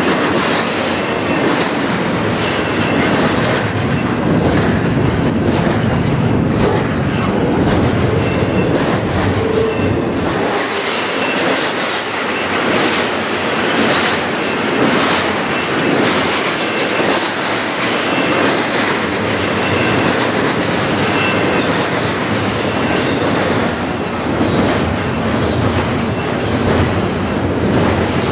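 Double-stack intermodal container train's well cars rolling past at close range: a steady, loud rumble of steel wheels on rail, with repeated clacks as the wheel sets pass over the rail joints.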